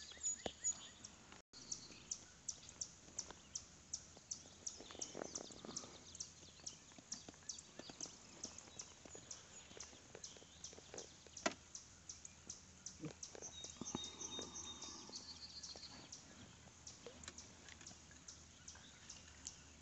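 A spinning fishing reel being cranked, ticking lightly about three times a second, with birds calling now and then and a single knock about halfway through.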